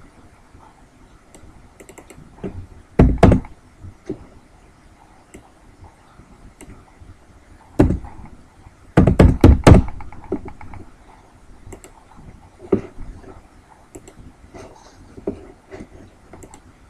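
Computer keyboard keys and mouse clicks: scattered taps, with much louder thunks about three seconds in and a quick run of them about nine seconds in.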